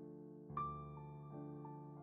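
Soft background piano music, slow, with a new note or chord struck about every second and held.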